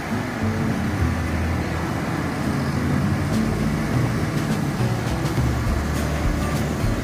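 Road traffic at a city intersection: cars and a pickup truck driving past, with engines running and tyres on wet pavement, over a steady low engine rumble.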